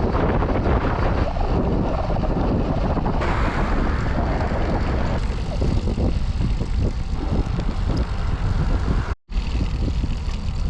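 Wind buffeting the microphone of a camera on a moving bicycle: a loud, continuous low rumble. It cuts out for a moment about nine seconds in.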